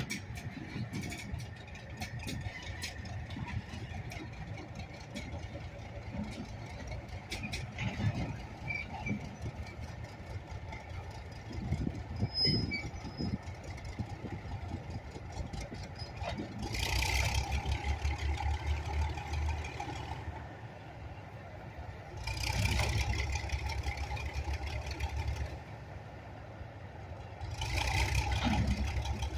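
GE diesel locomotive running with a steady low rumble, broken by three louder stretches of a few seconds each in the second half, where it throbs and a hiss rises.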